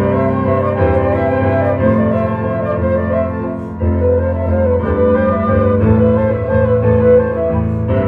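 Live flute ensemble playing held, sustained notes over keyboard accompaniment and a low bass line, with a brief lull a little before halfway.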